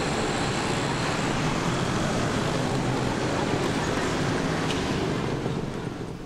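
Steady road traffic noise from a busy city street, with cars and motorbikes passing; it falls away somewhat near the end.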